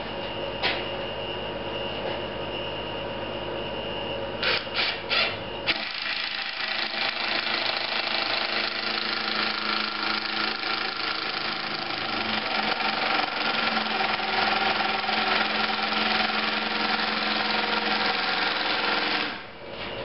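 A few short knocks, then a cordless drill drives a deck screw into wood framing, running continuously for about thirteen seconds before stopping. The long run-in comes on a battery that is running down.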